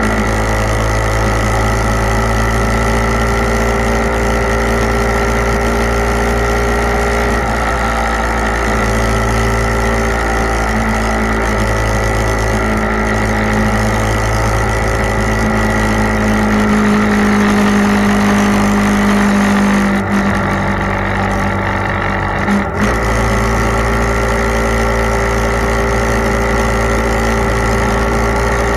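Motorcycle engine running at a steady road cruise, its pitch drifting gently with the throttle and growing stronger partway through, then easing off briefly about twenty seconds in.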